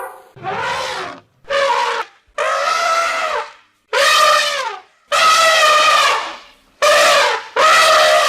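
Elephant trumpeting: a run of about seven loud, brassy calls, each up to about a second long with short breaks between, several dropping in pitch as they end.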